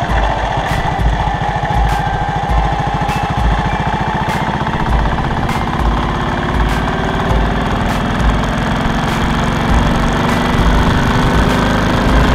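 Motorcycle engine running under way, its pitch rising slowly as the bike speeds up, with low wind thumps on the microphone.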